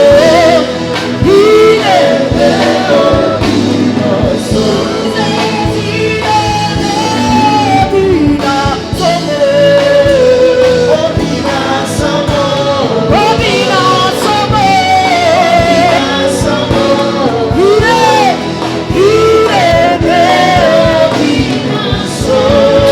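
Gospel worship song: singing with gliding, drawn-out notes over instrumental accompaniment.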